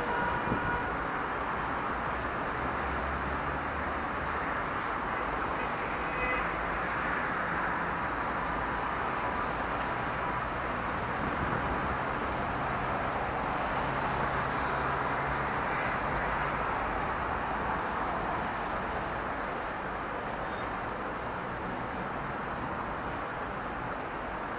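City street traffic: a steady, continuous wash of passing vehicles' tyres and engines with a low engine hum underneath.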